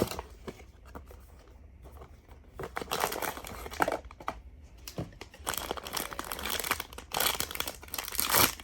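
Blind-box packaging being opened by hand: crinkling and tearing of wrapping in irregular bursts, loudest just before the end.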